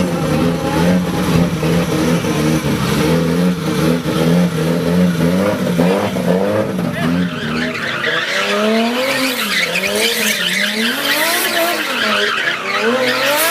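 Car engine running at a steady pitch, then revved up and down over and over from about eight seconds in.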